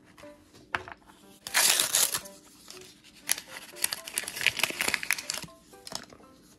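Plastic packaging crinkling as tiny miniature food pieces are unwrapped from a capsule, in two bouts of rustling with a click just before them, over soft background music.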